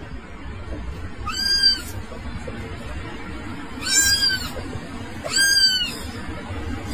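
Three high-pitched cat meows, each rising briefly and then falling, a couple of seconds apart, over steady background music.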